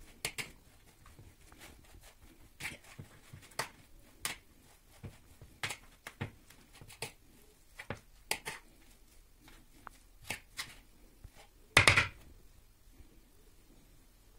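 Metal fork clinking and scraping against a ceramic bowl in irregular strokes while mixing minced meat with grated cheese and egg, with one louder scrape about twelve seconds in.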